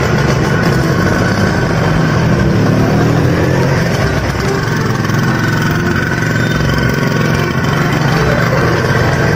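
Auto-rickshaw (bajaj) engine idling steadily.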